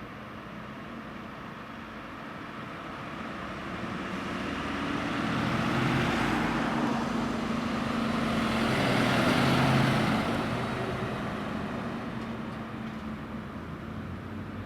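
Road vehicles driving past, their tyre and engine noise swelling to a peak about six seconds in and again near ten seconds, then fading away.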